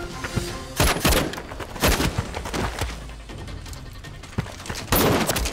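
Assault-rifle gunfire in a staged firefight: loud shots about a second in and about two seconds in, then a longer burst near the end, over background score music.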